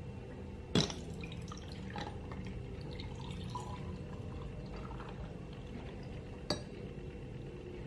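Orange juice pouring from a jug into a glass full of ice cubes, with a sharp clink about a second in and another near the end.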